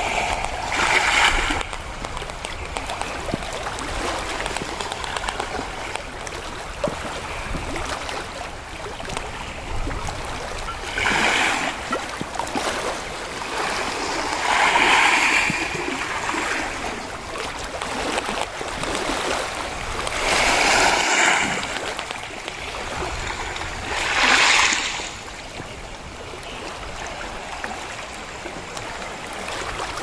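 Small sea waves washing in over rocks and pebbles at the shoreline, over a steady wash of water. Five separate swishes rise and fall, a few seconds apart.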